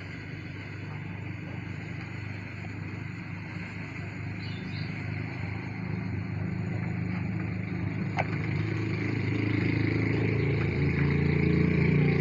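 A motor engine runs steadily with a low hum and grows louder throughout, like a vehicle drawing near. There is a light click about eight seconds in.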